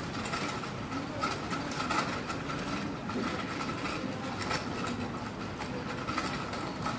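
Town street ambience: a steady mechanical drone with a persistent hum, and scattered clicks and knocks throughout.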